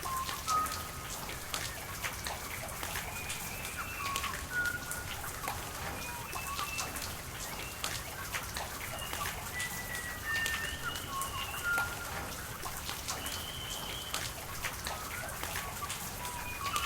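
Steady rain with many separate drops ticking, while birds call in short whistled notes throughout.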